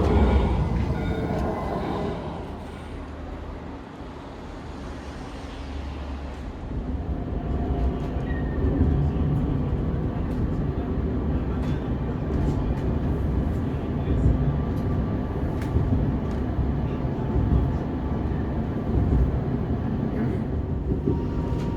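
Tram running on rails: a steady low rumble that fades away, then builds up again from about seven seconds in, with scattered clicks.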